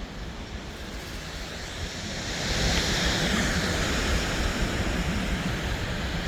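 Ocean surf washing onto the beach, with wind buffeting the microphone in a low rumble. The rushing grows louder about two and a half seconds in.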